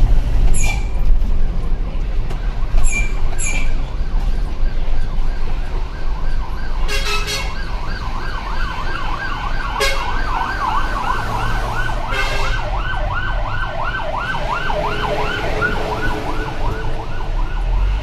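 Fire engine siren on a fast yelp, rising and falling about three to four times a second. It comes up about seven seconds in, is loudest in the middle and fades near the end as the fire trucks pass. Under it runs the steady low rumble of the dump truck's engine, heard from inside the cab.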